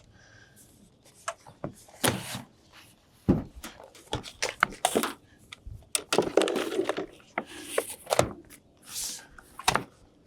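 RV slide-topper awning fabric being stretched out and handled: irregular rustling and flapping with scattered knocks.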